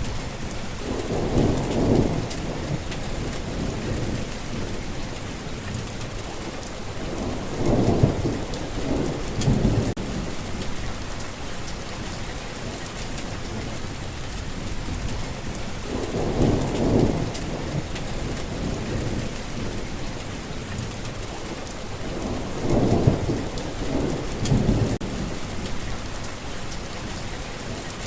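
Steady rain falling on a forest path, with four low rolls of thunder spaced several seconds apart, each lasting two to three seconds.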